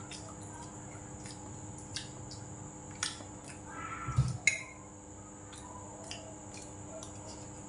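A spoon and chopsticks click against metal and ceramic bowls while eating, in light taps every second or so. Around four seconds in comes a short plastic-bag rustle with a low thump, then the loudest click.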